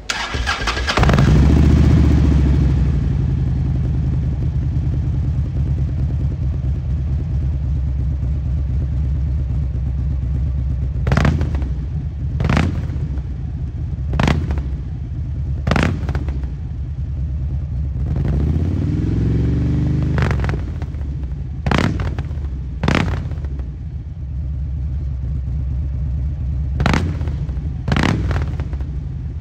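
Harley-Davidson Road King's air-cooled Twin Cam 103 V-twin through a Kerker full-system exhaust, starting up and settling into a steady idle. Later it is revved in about ten short, sharp throttle blips, with one longer rev rising and falling about two-thirds of the way through.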